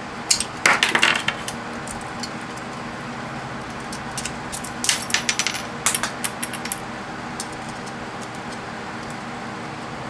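Sharp metal clinks and scrapes of a flathead screwdriver prying at a small solenoid gripped in channel-lock pliers, in two clusters: one just after the start and one around the middle. A steady low hum runs underneath.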